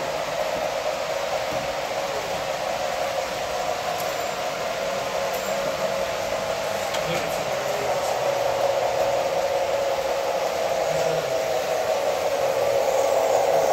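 S scale model train running on the layout: a steady whirring hum of the locomotive's motor and wheels rolling on the rails, wavering slightly in pitch and growing louder near the end.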